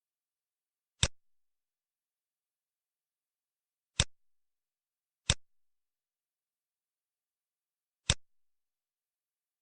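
Four short, sharp clicks at uneven intervals, each followed by a faint second tick, against digital silence.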